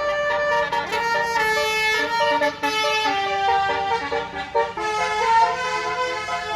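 Basuri telolet horn on a bus playing a tune of short notes that step up and down in pitch.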